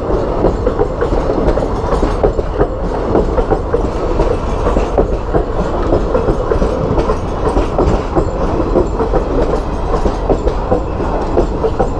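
Express passenger train of sleeper coaches passing close by at a level crossing, its wheels clattering steadily over the rail joints in a continuous run of clicks.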